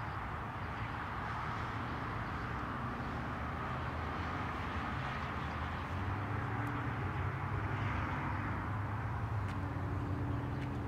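Steady outdoor background noise with a low hum underneath and no distinct event.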